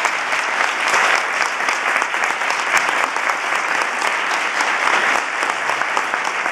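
Large audience applauding, many people clapping steadily.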